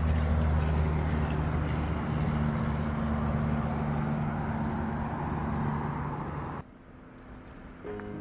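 Steady road noise: a constant traffic drone with a low hum, which cuts off abruptly about six and a half seconds in. Soft music starts near the end.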